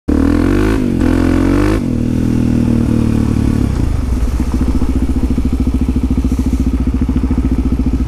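Suzuki DR-Z400SM's single-cylinder four-stroke engine under way, climbing in pitch and dropping back twice in the first two seconds. It then eases off to a low, evenly pulsing idle from about four seconds in as the bike slows to a stop.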